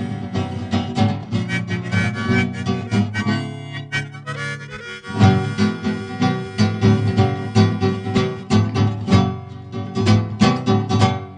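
Instrumental break of a song: harmonica over acoustic guitar, with the guitar strumming harder and in a steady rhythm from about five seconds in.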